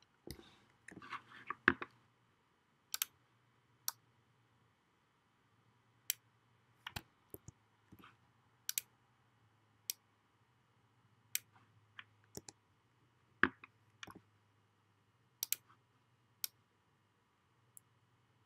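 Scattered single clicks of a computer pointing device, irregularly spaced and some in quick pairs, over a faint steady background hum.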